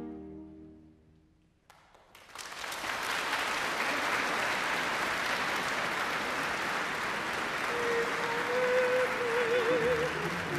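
The orchestra's final held chord dies away in the first second or so. After a brief hush, audience applause starts about two seconds in and goes on steadily. Near the end a single long, wavering call rises above the clapping.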